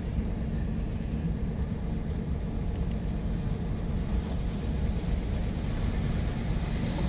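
Steady low rumble of a Dodge Ram 3500 pickup with a turbo-diesel Cummins engine driving along a gravel road, heard from inside the cab, with a steady low hum under the engine and tyre noise.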